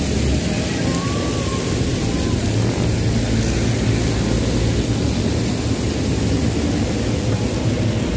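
Steady, loud rushing noise of fountain water jets spraying.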